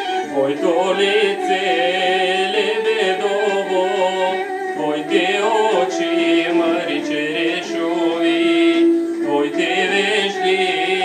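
Bulgarian folk song: a voice sings an ornamented melody over instrumental accompaniment, with short pauses between phrases.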